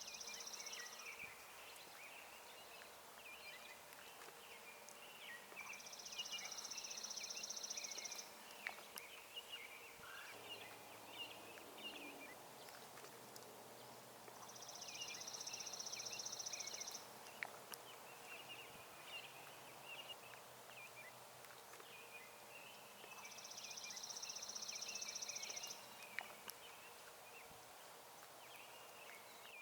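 Songbirds singing at a spring woods edge: one bird repeats a high, buzzy trill about two seconds long four times, roughly every eight seconds, over scattered chirps and short songs from other birds.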